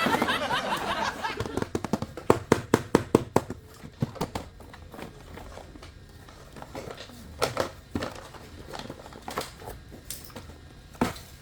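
Plastic toys being handled: a quick run of sharp clicks about two seconds in, then scattered taps and knocks.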